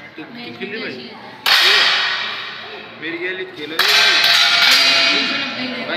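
Two sharp air gun shots about two and a half seconds apart, each a sudden crack followed by a long echoing decay, over faint background voices.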